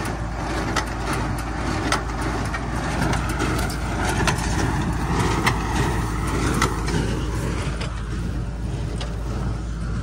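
Tractor engine running steadily while pulling a New Holland small square baler through straw, with repeated knocks from the baler as it works.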